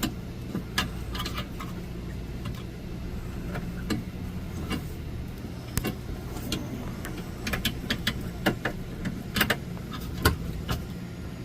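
A steady low machine hum with scattered sharp clicks and light knocks from hands-on work with parts and tools.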